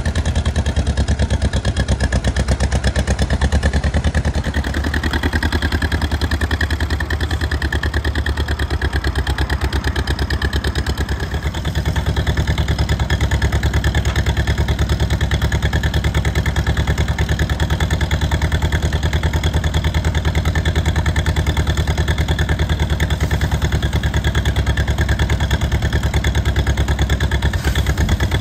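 1956 John Deere 420W tractor's two-cylinder engine running with a rapid, even beat of firing pulses. Its note changes twice in the first half, then holds steady.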